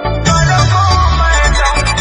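Loud Bhojpuri dance song with an electronic beat. A deep bass sweep falls in pitch just after the start.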